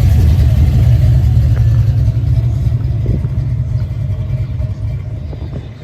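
A car's engine rumbling low and loud, fading gradually over the last few seconds as the car moves off.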